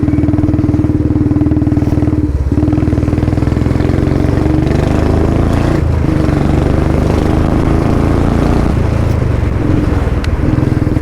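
Royal Enfield Bullet 350's single-cylinder engine running through a modified Long Punjab exhaust, a steady loud deep thump without big rises in revs. The engine is not yet warm, so the exhaust is not backfiring.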